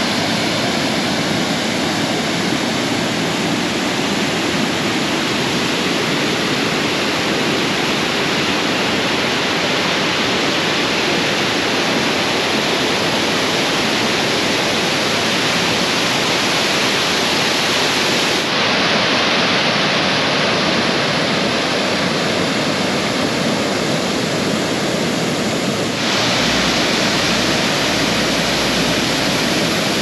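Steady rushing of a large waterfall, water pouring over a broad rock ledge. Its tone shifts slightly about two-thirds of the way in, and a low rumble joins in near the end.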